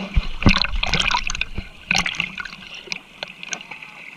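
Sea water splashing and trickling in irregular splashes, loudest about half a second and again two seconds in.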